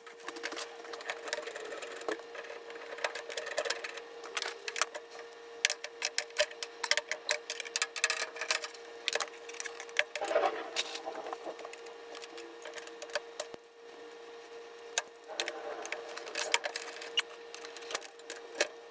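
Irregular clicks, taps and rattles of washing-machine supply hoses and their fittings being handled and threaded on by hand, over a steady hum.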